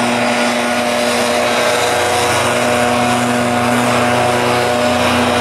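Gas-powered backpack leaf blower running steadily at high speed: a loud, even drone with a held pitch and overtones.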